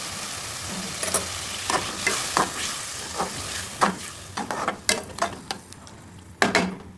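Vegetables sizzling in a frying pan while being stirred, with the spatula knocking and scraping against the pan. The sizzle fades as it goes on, and the stirring strokes come faster toward the end, ending in two louder clatters.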